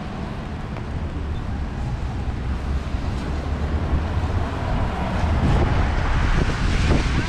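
Rainy street ambience heard from under an umbrella: rain on the umbrella canopy and tyres on wet pavement, with a low wind rumble on the microphone. It grows louder over the last couple of seconds.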